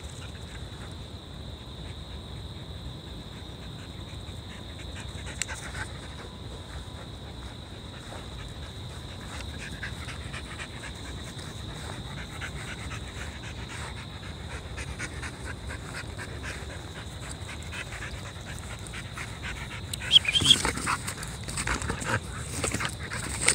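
A dog panting as it moves about, louder and close to the microphone in the last few seconds, where a few loud, sharp noises stand out.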